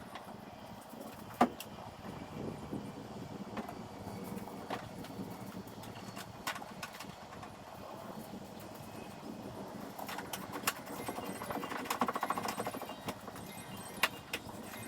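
Scattered clicks and light knocks of hand work on a car's body parts, with one sharp click about a second and a half in and a short, rapid rattling near the end.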